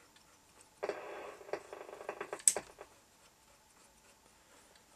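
Realistic DX-160 communications receiver giving a short burst of hiss and then crackles and clicks while being tuned across band D, with one sharp click about two and a half seconds in. It dies away to faint background about three seconds in, with no station heard.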